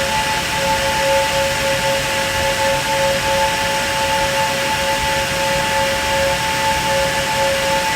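Cooling fans of a Cisco Catalyst 4500-X network switch (WS-C4500X-16SFP+, front-to-back airflow) running steadily: a loud, even rush of air with two steady whining tones, one mid-pitched and one higher.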